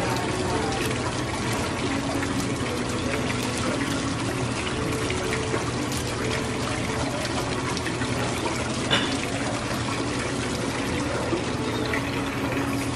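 Steady rushing, splashing water, with a brief click about nine seconds in.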